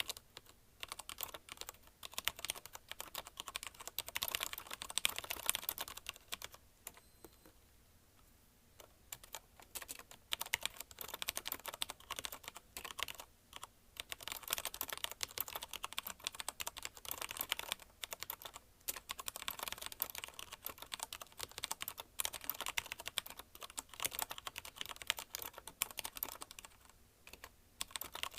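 Fast continuous typing on a CM Storm QuickFire TK mechanical keyboard with linear Cherry MX Red switches: rapid key clacks in steady runs, pausing for about two seconds a third of the way in.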